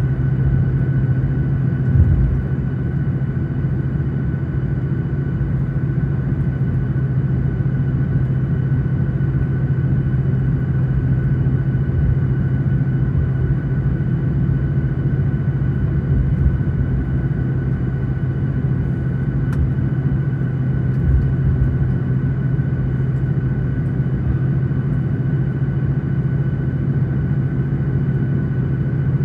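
Cabin noise of a Boeing 737-900 taxiing, its CFM56-7B engines at idle: a steady low hum with a thin high whine above it. A few soft low thumps come through about two seconds in and again in the second half.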